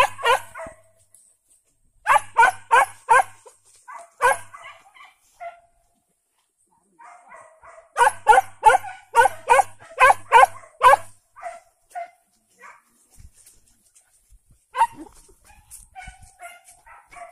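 Hunting dogs barking in quick volleys of several barks, about three a second, with scattered shorter barks near the end.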